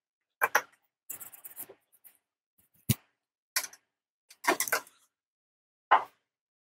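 Small objects being handled on a phone-repair bench: a run of short clicks and taps with a brief scrape, and one sharp knock near the middle.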